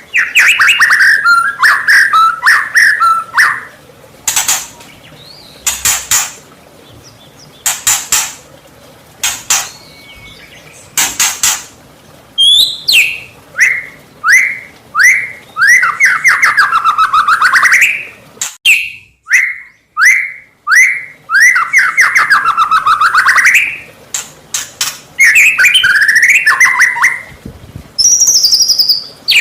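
White-rumped shama (murai batu) in full song: loud, varied phrases broken by short pauses. Sharp, quick notes come first, then runs of repeated down-slurred whistles.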